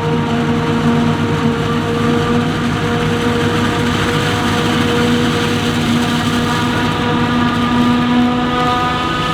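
Claas Jaguar 870 forage harvester working in maize: its engine and chopping machinery running steadily at working speed, a constant loud hum with several high steady whining tones over it.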